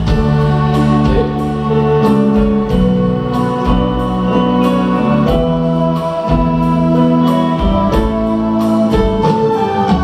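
Live band playing an instrumental passage with no vocals: held organ-like keyboard chords that change about every second, with electric guitar, over a steady beat of about two strokes a second.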